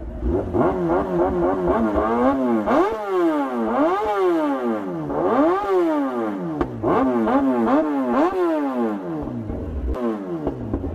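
Kawasaki ZX-10R inline-four superbike engine revved again and again while standing still, the pitch climbing sharply and falling back with each throttle blip, about seven or eight times, then settling back to idle near the end.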